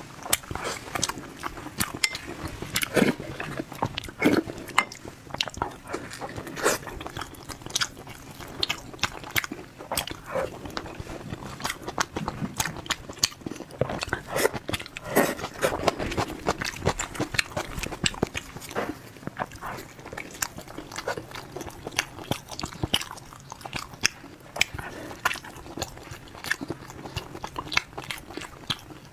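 A person eating close to the microphone: biting and chewing, with many short, irregular mouth clicks and smacks that go on without a break.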